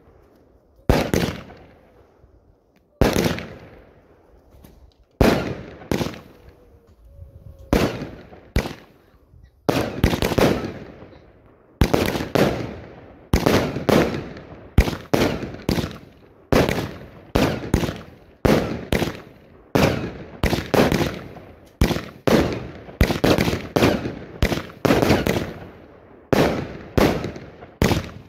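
Fireworks display heard from close to the firing site: a run of loud shell bursts, each a sharp bang followed by a fading rumble. The bangs come a second or two apart at first, then faster, nearly two a second, through the second half.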